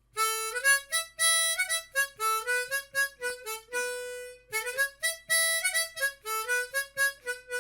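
Intro music: a solo harmonica playing a quick melody of short single notes, some of them sliding up in pitch.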